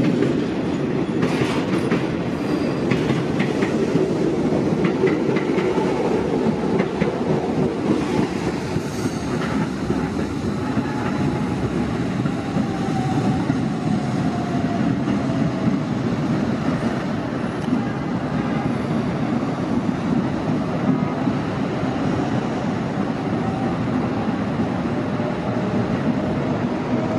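Retired R42 subway cars hauling a refuse train over a steel elevated viaduct: a steady rumble of wheels on rail, with clickety-clack from rail joints in the first few seconds and a faint falling whine near the middle.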